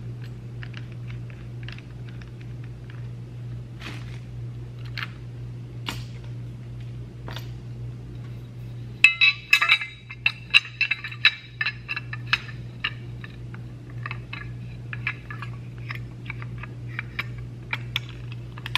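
Clicking and light clinks from the adjustable wheel guard of a Milwaukee M18 Fuel cordless angle grinder as it is turned and latched on the grinder, with a quick run of sharp clicks about halfway through. A steady low hum runs underneath.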